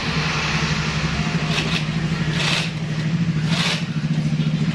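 Industrial shoe sewing machine running steadily as it stitches through a shoe upper: a low, even hum with a fast stitching rhythm. There are three brief hisses in the middle.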